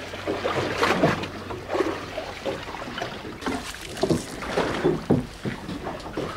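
Sea water slapping and splashing against the hull of a drifting fishing boat, with wind on the microphone. A low engine hum runs under it in the first second or so.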